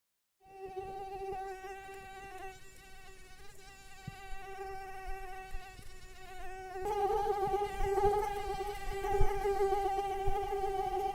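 Mosquito in flight, its wings making a steady high-pitched whine. It comes in just after a moment of silence, stays softer for a few seconds, and gets louder about seven seconds in.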